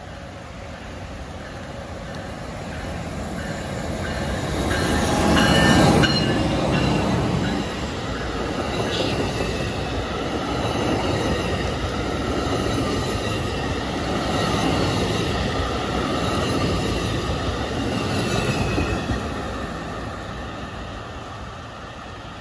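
NJ Transit ALP-45DP dual-mode locomotive, running on diesel, approaching and pulling a multilevel commuter train past at track level. It is loudest as the locomotive passes about six seconds in, then the coaches' wheels roll by steadily, fading near the end as the train recedes.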